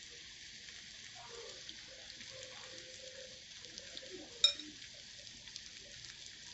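Faint sizzling of masala and boiled eggs frying on a flat iron tawa. A single sharp metallic clink, a utensil against the pan, comes about four and a half seconds in.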